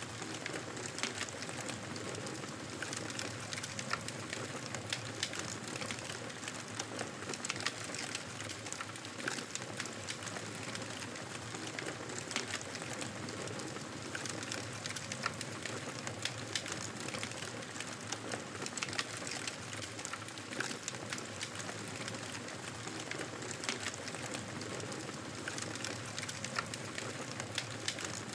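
Campfire burning with a steady hiss and frequent small sharp crackles and pops from the wood.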